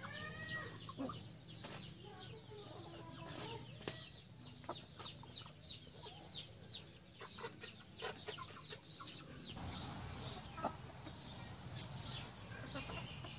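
Chickens clucking, with many quick, high chirps in a steady stream.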